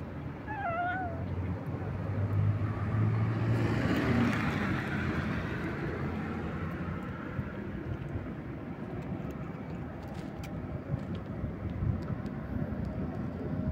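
Street traffic: a vehicle passes by, its noise with a low hum swelling to its loudest a few seconds in and then easing into a steady traffic rumble. A brief wavering call sounds near the start.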